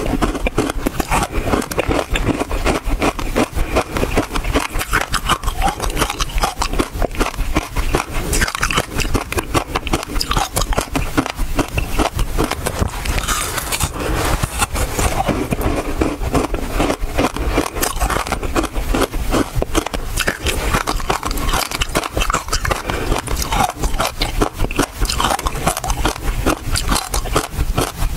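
Close-miked crunching of ice with basil seeds frozen in it, bitten and chewed: a dense, continuous run of brittle cracks and crackles, many a second, without a break.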